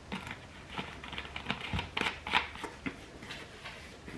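Light irregular clicks, taps and rustles of hands handling kitchen containers and utensils on a counter.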